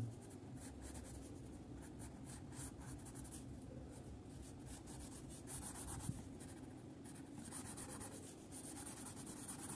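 Wax crayon rubbed back and forth across paper in repeated strokes, a faint scratchy scraping that gets a little louder about halfway through and again near the end.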